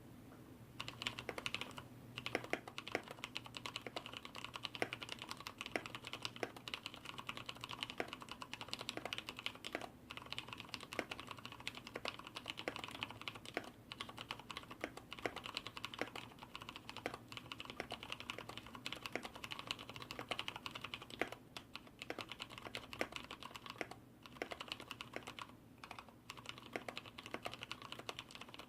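Typing on a mechanical keyboard with Cherry MX Brown switches, a fast, continuous run of key strokes starting about a second in. The switch sliders and stabilizers are lubed and the case dampened, so the stabilizer wire rattle is largely gone and the key sound is subdued.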